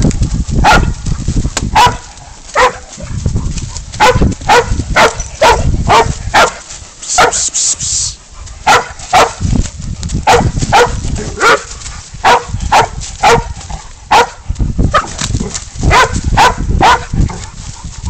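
Pig dog baying at a bailed-up goat: a run of sharp barks, about two a second, with a short break a little past the middle.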